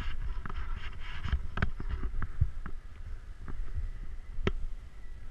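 Snowboard riding down through snow: a steady low rumble of the board sliding over the snow, mixed with wind on the camera, and scattered short knocks and clicks, the sharpest about four and a half seconds in.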